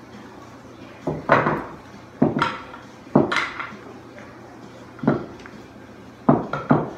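Pool balls clacking together and against a wooden triangle rack as they are gathered by hand and racked. The sharp clacks come in short groups of one to three, about once a second or two.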